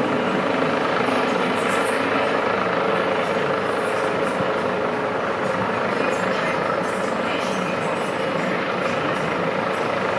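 Rescue helicopter heard as a loud, steady drone of rotor and engine that stays even throughout.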